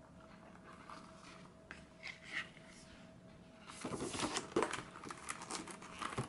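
Stiff paper rustling and crinkling as the page of a spiral-bound desk calendar is flipped over by hand. A few faint taps come first, then a dense run of crinkling starts about four seconds in.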